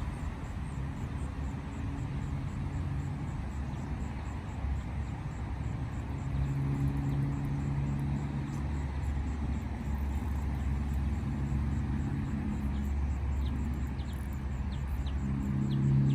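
An engine running steadily with a low hum; its pitch shifts about six seconds in and climbs near the end.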